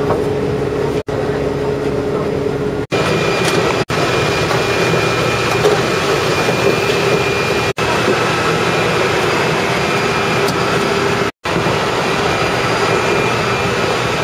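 Steady roar of jet aircraft on an airport apron, with a high whine and a lower hum held throughout, broken by several very brief dropouts.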